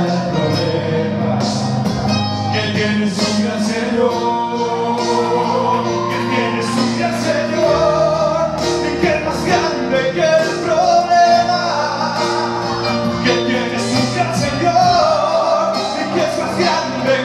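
A man singing a Spanish-language praise song (alabanza) into a microphone, over musical accompaniment with a steady percussive beat.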